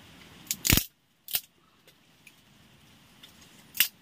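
A few sharp clinks of cooking gear being handled: a loud double clink under a second in, another shortly after, and one more near the end.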